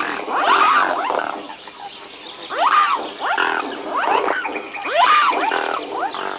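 A group of swans calling, with many short, overlapping, rising calls coming in waves about once a second.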